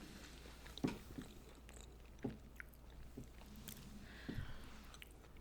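Close-miked chewing of soft, syrupy Indian sweets, with scattered wet, sticky mouth clicks.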